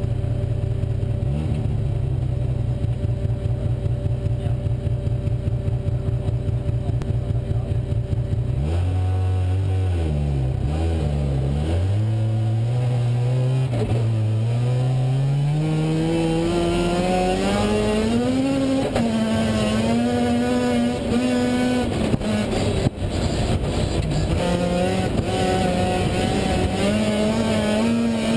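Rally car engine idling with an even, lumpy pulse, then revving hard as the car pulls away and climbs through the gears, the pitch rising and dropping back at each shift. A single sharp knock comes about two-thirds of the way through.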